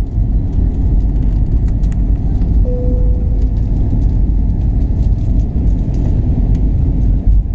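Airbus A320 cabin noise in the climb after takeoff: the steady low rumble of the jet engines and the airflow over the fuselage. A short single tone sounds about three seconds in and fades.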